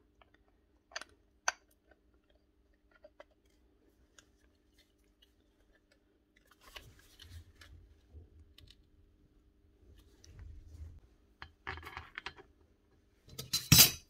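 Parts of a Rotabroach magnetic drill being handled and fitted together: two sharp clicks about a second in as the armature goes into the gear housing, then scuffing and knocking of metal parts, and a louder metal clatter near the end.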